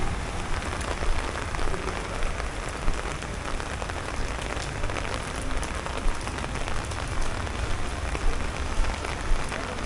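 Heavy rain falling on a wet street and pavement: a steady hiss of rain with sharper drops and taps standing out irregularly, about once a second.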